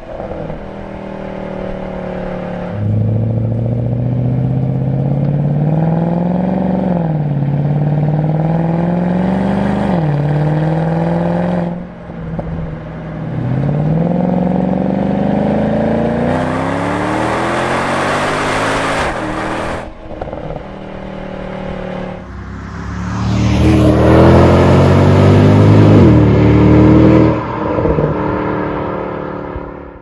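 Mercedes CLK63 AMG's M156 V8 heard from the back of the open convertible as it pulls through the gears: the exhaust note climbs in pitch and drops back at each upshift, eases off twice, then gets loudest on a hard pull near the end.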